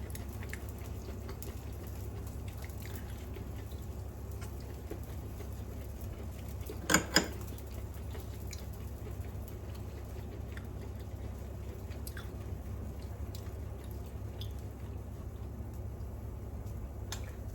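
Pork shoulder loin sizzling on an electric shichirin, with faint scattered pops and crackles of fat, over the steady low hum of a range hood fan. Two sharp clicks come close together about seven seconds in.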